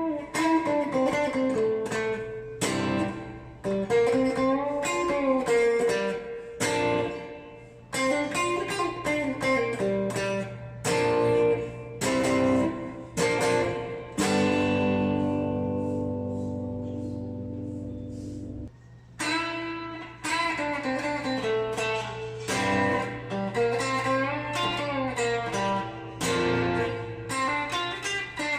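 Electric guitar played through a VOX VT40X modelling amp: picked melodic phrases with string bends. About halfway through, a chord is left ringing for roughly four seconds and then cut off, and the phrase starts over.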